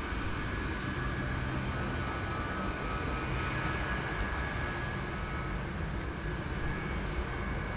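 Boeing C-17A Globemaster III's four Pratt & Whitney F117 turbofans running at low taxi power while the aircraft rolls slowly along the runway. A steady jet whine sits over a low rumble.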